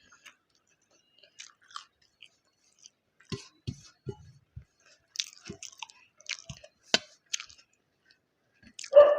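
Close-up mouth sounds of a person chewing egg biryani: soft wet smacks and clicks coming in irregular clusters. About nine seconds in there is one brief, much louder pitched sound.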